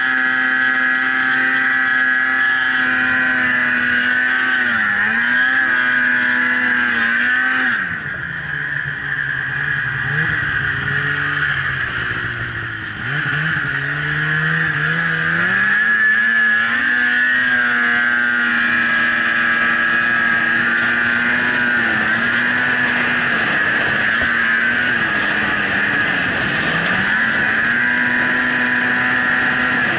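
Polaris snowmobile engine running at high revs. The pitch drops as the throttle eases about eight seconds in, wavers lower for several seconds, then climbs back to high revs and holds, with a brief dip again near the end. A steady high whine runs with the engine.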